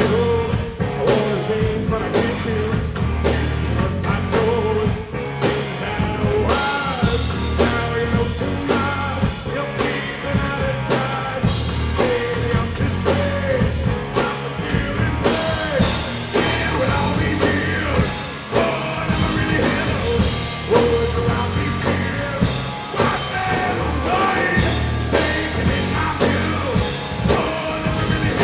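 Rock music with a singing voice over a drum beat.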